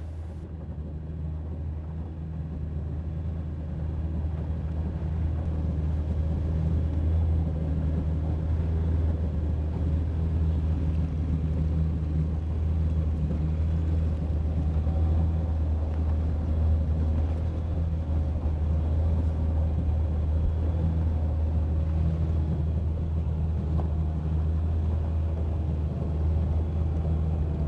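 Motorboat engine running steadily underway, a low drone that grows louder over the first few seconds and then holds.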